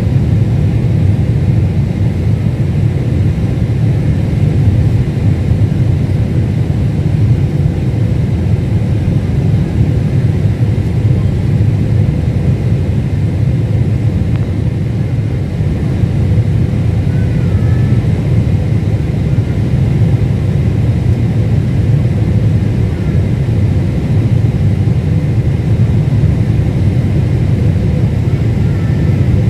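Steady cabin noise inside a Boeing 747-8 airliner in flight: a constant low rumble of engines and airflow with a faint steady hum, unchanging throughout.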